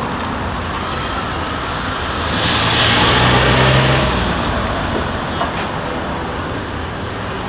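Steady road traffic noise, with a motor vehicle passing close by and growing louder about two seconds in, then fading away about two seconds later.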